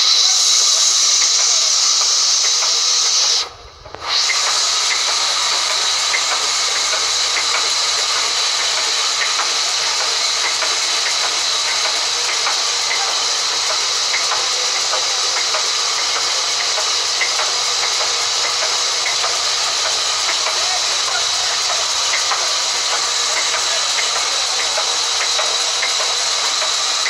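Steady high hiss of sawmill machinery running, with faint steady tones beneath it. The sound drops out briefly about three and a half seconds in, then resumes.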